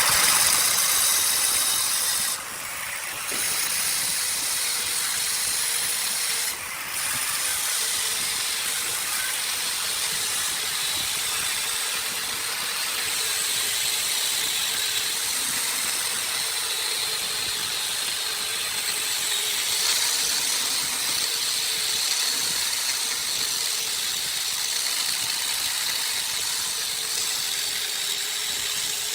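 Gas blowtorch flame hissing steadily while charring wood, briefly dropping away twice in the first several seconds.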